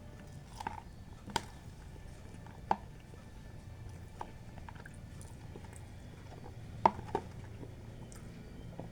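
A person eating, with chewing and a few sharp clicks scattered through; the loudest pair of clicks comes about seven seconds in.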